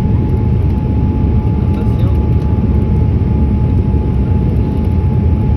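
Steady low rumble of a Boeing 787-8's engines and airflow heard inside the cabin, with a thin steady whine above it.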